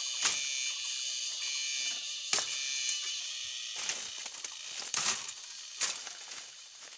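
Machete chopping at the base of a green bamboo stem: about seven sharp, irregularly spaced knocks. A steady high-pitched buzz runs under them.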